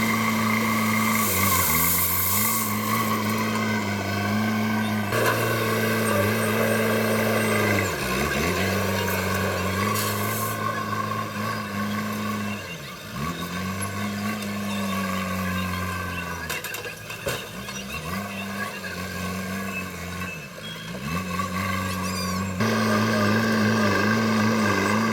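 JCB backhoe loader's diesel engine running under load, its revs sagging briefly and recovering several times as the hydraulics work the digging and dumping.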